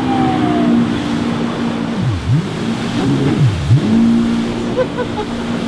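Personal watercraft (jet ski) engine running at high revs while it circles and speeds off. Twice, about two and three and a half seconds in, the throttle is let off and opened again, so the pitch drops sharply and climbs straight back up.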